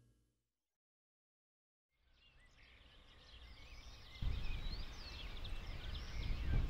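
Several birds chirping and singing, fading in after a silent start, over a low wind rumble that grows louder about four seconds in.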